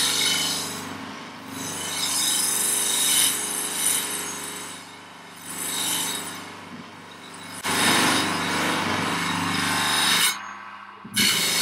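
Bench grinder running with a polishing wheel charged with abrasive paste, a steel kitchen knife blade pressed against it. The rubbing hiss swells and fades several times as the blade is worked across the wheel, polishing out fine scratches.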